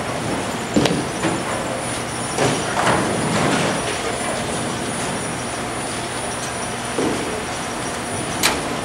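Bowling alley din: a steady rumble of balls rolling down the lanes, with sharp knocks and pin clatter about a second in, around three seconds in, at about seven seconds and again near the end.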